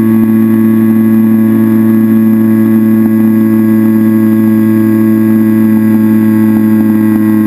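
Electric motor and propeller of an FPV RC plane at steady cruise, heard from the camera on board: a loud, unchanging buzzing drone.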